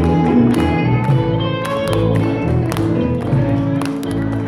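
Live band playing an instrumental passage: electric guitars, bass guitar and cajón, with sustained guitar notes over regular percussive hits and no singing.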